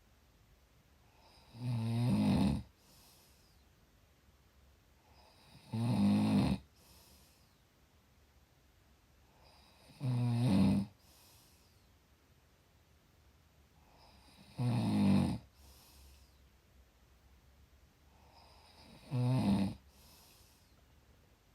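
A person snoring in sleep: five snores at an even pace about every four and a half seconds, each lasting about a second, with a faint breath just after each one.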